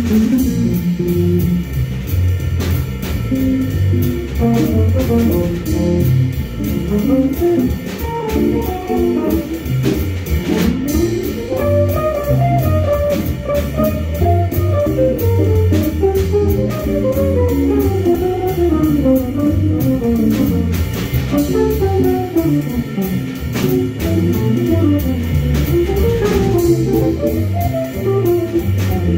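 Electric guitars jamming in a jazz style: fast single-note runs that climb and fall over repeating low notes.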